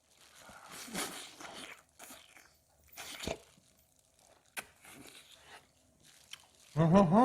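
Close crunching and chewing of roast chicken with crisp skin, in several short bites. Near the end a person gives a long, wavering "mmm" of enjoyment.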